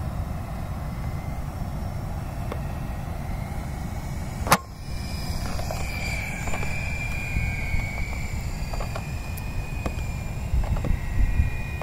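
Faint high whine of a distant coaxial helicopter, drifting slightly in pitch, over a steady low wind rumble on the microphone. A single sharp click about four and a half seconds in.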